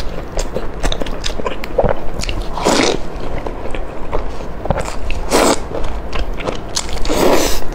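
Close-miked eating of a sauce-dipped fried, meat-filled bun: wet biting and chewing with many small mouth clicks and lip smacks. Three longer slurping sounds come about three seconds in, again a couple of seconds later, and near the end.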